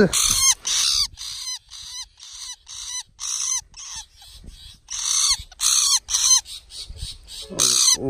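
Young shrike held in a hand, screaming loudly and without pause in distress at being grabbed. Short harsh calls come about two to three a second, each dropping in pitch at its tail.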